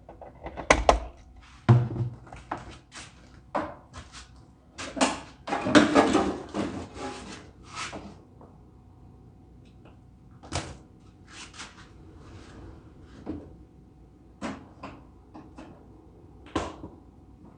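Irregular knocks and clatter of parts and tools being handled on a shop bench, with a denser run of clattering about five to eight seconds in.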